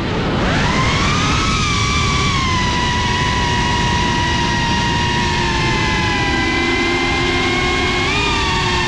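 GEPRC Cinelog 35 ducted 3.5-inch FPV quadcopter's motors and propellers whining at high throttle, heard from on board with a rush of air underneath. The pitch climbs about a second in, holds fairly steady while the drone carves across the field, then rises again near the end as the throttle is punched.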